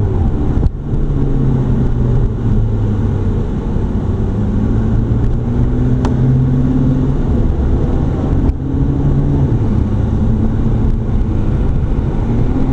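McLaren 12C's twin-turbo V8 running at low, fairly steady revs, heard from inside the cabin, with two brief dips, about a second in and about eight and a half seconds in.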